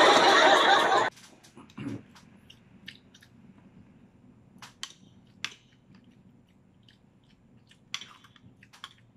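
Eating close to a microphone: a metal spoon clicking against plates while food is scooped, with soft chewing between. It opens with about a second of a loud, noisy sound that cuts off abruptly.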